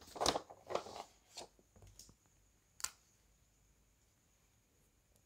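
Brief scratchy handling noises, then a single sharp click a little before three seconds in, followed by faint room tone with a thin steady high hiss.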